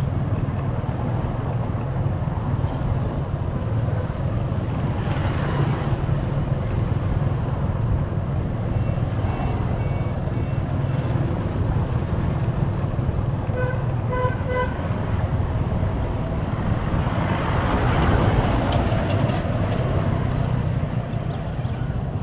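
Road traffic heard from a moving vehicle, with a steady low rumble of engines and road noise. About thirteen seconds in, a vehicle horn beeps three times in quick succession; a fainter horn toots a few seconds earlier.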